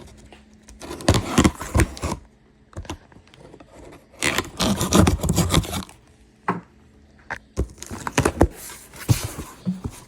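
A mail package being torn and pulled open by hand: irregular bursts of tearing, scraping and crinkling packaging, in three spells.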